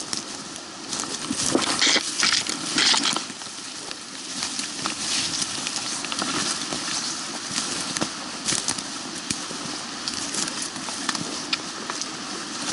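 Footsteps crunching through dry leaf litter and twigs on a forest floor, uneven and loudest about one to three seconds in, over the steady rush of a nearby creek.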